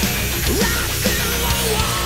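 Hard rock background music with a steady drum beat.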